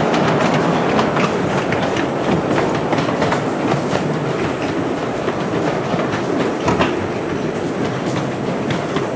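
Steam-hauled miniature railway train running along the track, heard from a passenger car: a steady rolling rumble with irregular clicks of the wheels over rail joints.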